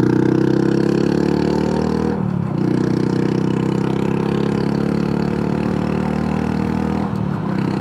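Honda Super Cub C125's single-cylinder four-stroke engine pulling under acceleration, its pitch climbing, with gear changes about two seconds in and again near the end.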